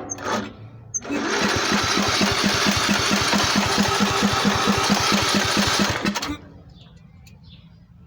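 Lawnmower engine catching and running for about five seconds with an even pulsing beat, then cutting out suddenly as it dies.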